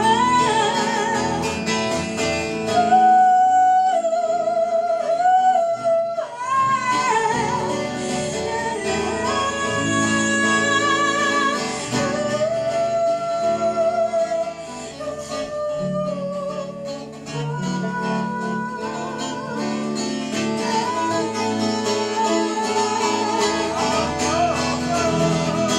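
Live acoustic song break: an acoustic guitar accompaniment with a sustained, sliding melody line with vibrato over it, and no sung words.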